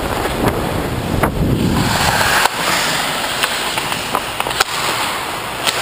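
Ice skate blades scraping and gliding over rink ice, with wind rushing over a skater-worn camera's microphone, and a few sharp clacks from sticks and puck, the clearest near the end.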